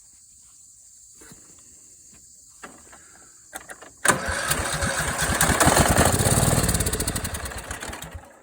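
A few faint clicks, then about four seconds in the Cub Cadet lawn tractor's engine is cranked and catches on starter fluid sprayed into the carburettor. It runs in even pulses for about four seconds, then fades and dies, typical of an engine running only on the starter fluid.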